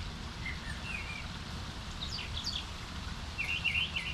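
Birds chirping in short, scattered calls, several in quick succession near the end, over a steady low background rumble.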